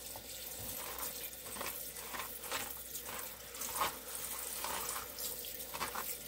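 Kitchen tap water running into a bowl of garlic stalks, splashing unevenly as a hand turns the stalks over to rinse them.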